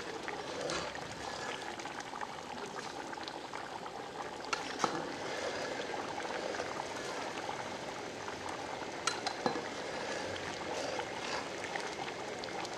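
Rice pulao boiling in a large aluminium pot, a steady bubbling with fine crackle. A few sharp metal clinks come from a knife or ladle striking the pot, about five and nine seconds in.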